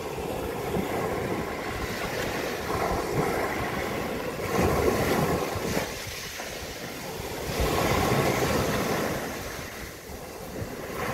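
Small sea waves breaking and washing up a pebble beach. The surf swells and eases in surges a few seconds apart, loudest about four and a half and eight seconds in.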